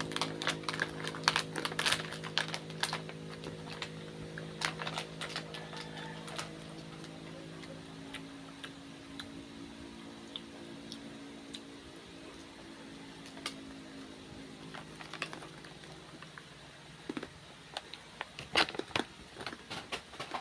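Crunchy crackers being chewed close up: irregular crisp crunches and crackles, busiest in the first few seconds and again near the end. Under them runs a steady low hum that fades out past the middle.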